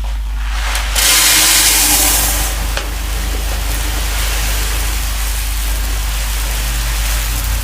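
A steady hissing rush over a low hum, loudest and brightest from about one to two and a half seconds in.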